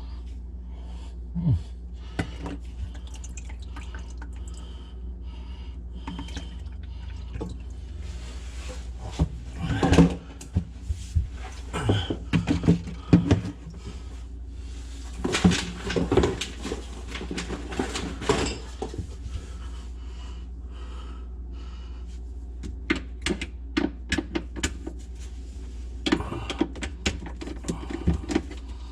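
Irregular knocks, clicks and clatter of sink drain pipes and fittings being handled and worked on under a kitchen sink, coming in several bursts, over a steady low hum.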